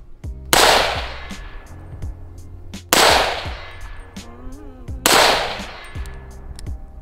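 Three shots from a 7.5-inch-barrel 300 Blackout AR-15 pistol, a little over two seconds apart, each fading out over about a second.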